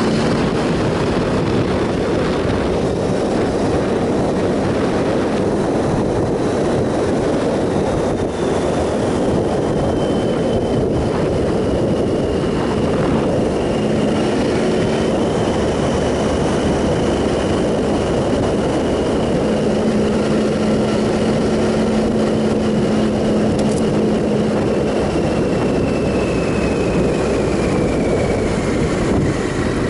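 Steady wind rush over the microphone from a moving motorcycle, with the 2007 Triumph Sprint ST 1050's three-cylinder engine running at an even pace underneath.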